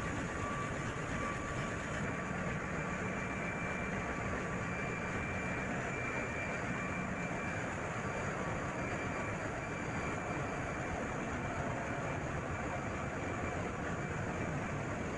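Steady din of a container ship's engine-room machinery running, with a faint high whine above it.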